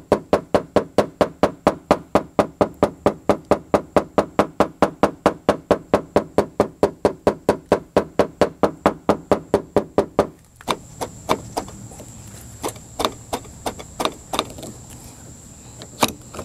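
Small hammer tapping lightly and rapidly, about five taps a second, on a pickup's front fender through a cushion of tape, knocking down the raised high spot beside a dent while a suction cup pulls the dent out. About ten seconds in, the fast tapping stops and a few slower, scattered taps follow.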